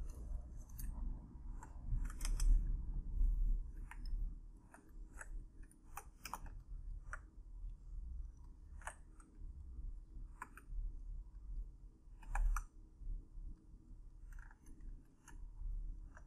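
Irregular clicks of a computer mouse and keyboard, some single and some in quick clusters, over a low steady hum.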